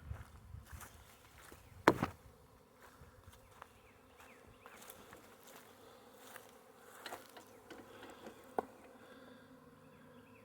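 A swarm of honey bees in flight buzzing as a faint, steady hum. A sharp click about two seconds in, and a smaller one near the end.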